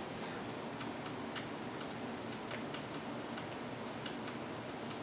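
Quiet room tone: a steady hiss with faint, irregular small clicks scattered through it.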